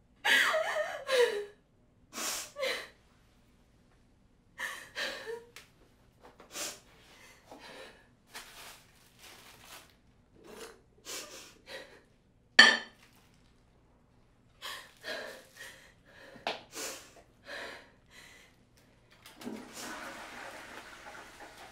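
A woman crying alone in a small bathroom: ragged sobs and gasping breaths in short uneven bursts, strongest at first and then weaker and more broken. Near the end a tap starts running with a steady hiss of water.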